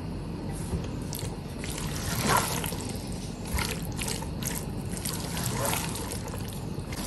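Silicone spatula stirring and scraping a thick sauce of chicken, onion and capsicum in a non-stick pot, in irregular strokes about every second.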